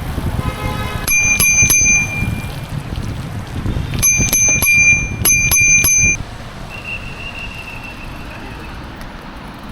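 Bicycle bell rung in three quick bursts of dings, about a second in and twice more around four and five seconds in, over the rumble of riding on a wet road.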